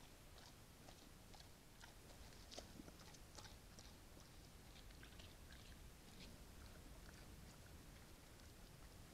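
Brown bear eating close to the trail camera: faint, irregular crunching and chewing, with a few louder crunches around three seconds in.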